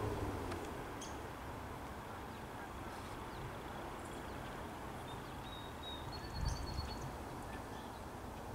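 Steady low outdoor background rumble with a few faint, short bird chirps in the middle and a brief swell in the rumble about six and a half seconds in.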